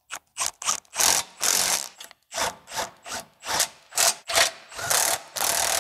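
Socket ratchet on a long extension clicking in repeated short strokes as it turns a bolt at the exhaust pipe flange.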